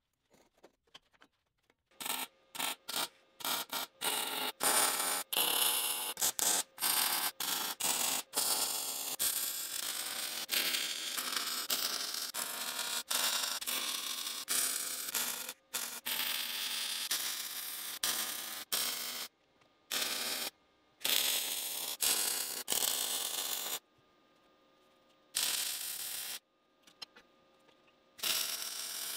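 MIG welding arc on steel square tubing: a string of short tack welds, then a longer continuous bead lasting several seconds, then a few more short welds.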